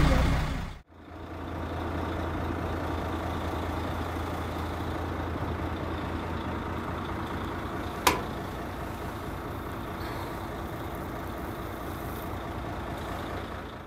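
Heavy truck's diesel engine idling steadily with a low hum. A louder stretch at the start cuts off abruptly about a second in before the idle continues, and there is a single sharp knock about eight seconds in.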